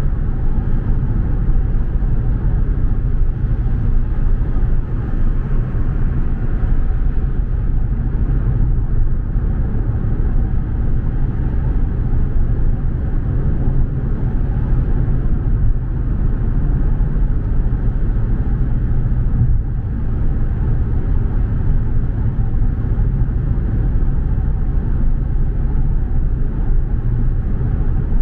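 Car driving steadily: a constant low rumble of road and engine noise.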